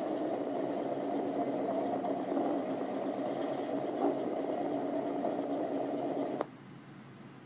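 Pure stock race car engine running steadily, heard from inside the cockpit, with rattling from the car. The sound cuts off abruptly about six seconds in, leaving only a faint hum.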